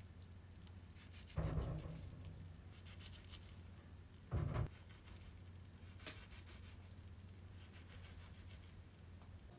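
Kitchen knife slicing into butterbur-leaf-wrapped rice balls and knocking on the wooden cutting board: two short cuts about three seconds apart, with a few faint ticks later, over a low steady hum.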